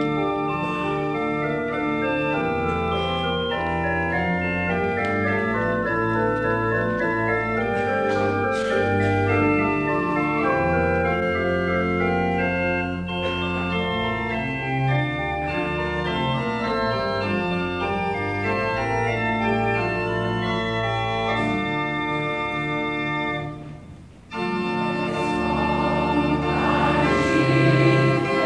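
Church organ playing slow, held chords over a low bass line. It breaks off for under a second about 24 seconds in, then starts again.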